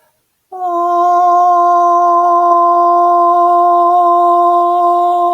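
A single long vocal tone, hummed or sung on one steady pitch, starting about half a second in: healing-sound toning.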